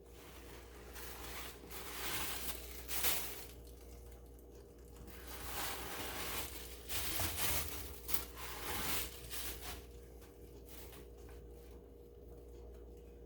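Packaging rustling and crinkling as it is handled during an unboxing, in uneven bursts. It is loudest about three seconds in and again around seven to nine seconds, then dies down near the end.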